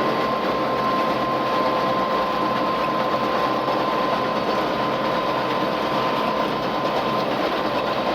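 Tractor and Krone KR 130 round baler running steadily while baling, a constant machine noise with a steady high whine through it.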